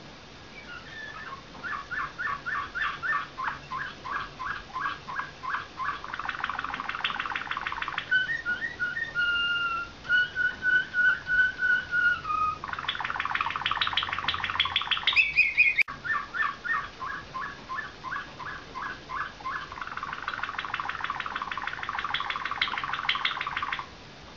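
Slavujar (nightingale-song) canary singing: long runs of rapid repeated notes that speed up into fast trills, with a slower stretch of clear whistled notes about eight seconds in. The song stops abruptly near the end.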